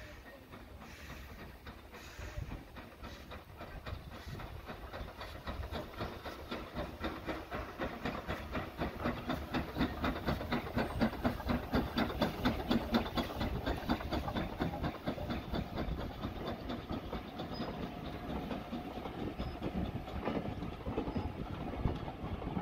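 Hunslet Austerity 0-6-0 saddle-tank steam locomotive working a train past, with a regular rhythm of exhaust beats and steam hiss that grow louder as it approaches and are loudest about halfway through. The coaches follow, their wheels clicking over the rail joints.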